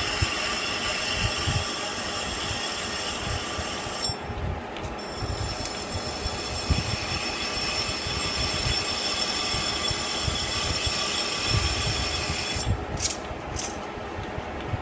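Metal lathe turning slowly in low gear (about 55 RPM), with a burr knife cutting the edge of a 1018 cold-rolled steel part, making a steady multi-toned whine. The whine drops out briefly about four seconds in and stops near the end, followed by a couple of sharp clicks.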